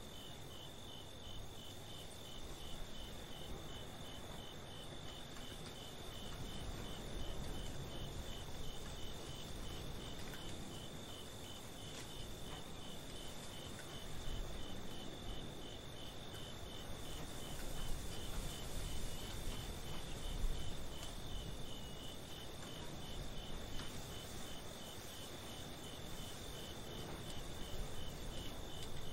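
Crickets chirping in a steady, evenly pulsed night chorus over a low, even rumbling background noise.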